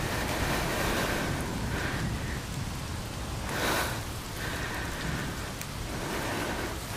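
Steady rain falling, an even hiss close on the microphone, with a brief louder rush about three and a half seconds in.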